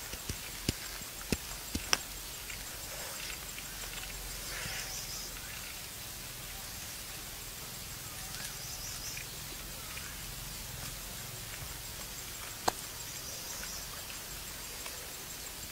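Faint outdoor background with scattered high chirping, broken by a few sharp clicks in the first two seconds and a single click near the end.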